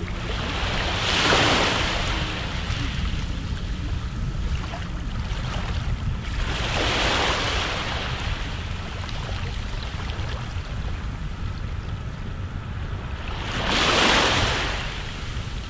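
Sea waves surging in and washing out three times, about six seconds apart, over a steady low rumble of wind.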